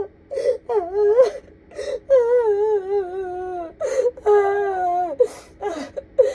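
A woman sobbing and wailing: long wavering wails that sag in pitch, broken by sharp gasping breaths.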